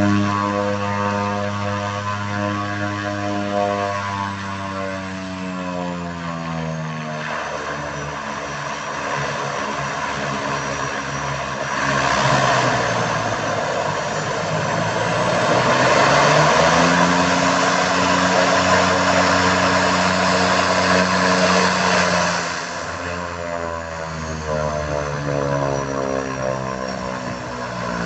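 Thrush 510P agricultural plane's Pratt & Whitney PT6A turboprop running on the ground with the propeller turning. The tone sinks over the first several seconds, then the engine is run up louder for about ten seconds with the pitch climbing, and the tone falls away again near the end. A thin high turbine whine rides above it.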